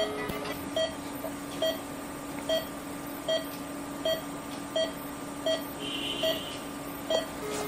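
A short electronic beep repeating steadily about every 0.8 seconds, about 75 a minute, as a patient monitor's pulse tone sounds during an endoscopic procedure. A steady low hum runs underneath, and a brief higher-pitched tone sounds about six seconds in.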